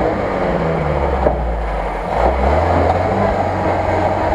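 UAZ-469 engine revving under load as its tyres spin and churn through deep mud and water. The engine note sags and then climbs again about two seconds in.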